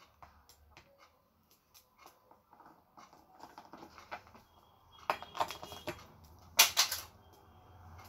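Scattered light clicks and taps, growing denser about five seconds in, with one loud rustling burst near the end.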